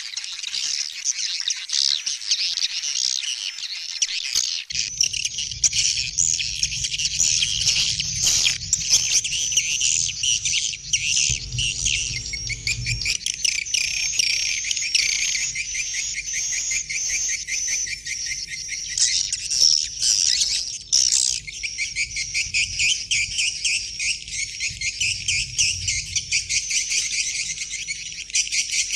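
Dense, high-pitched bird twittering and chirping, many quick calls overlapping. A low steady hum joins beneath about five seconds in.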